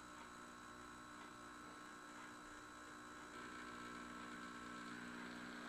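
Model diesel locomotive's electric motor humming faintly as it creeps along the track at low speed under DCC control. Its whine grows a little louder about three seconds in.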